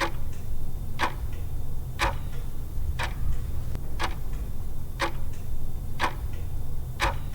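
Clock-ticking sound effect, about one tick a second, used as a countdown while the quiz answer is awaited, over a steady low hum.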